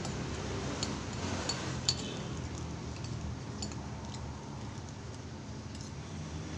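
Metal cutlery clinking against a container as noodles are scooped up and eaten: about five short, sharp clinks spread out, over a steady low hum.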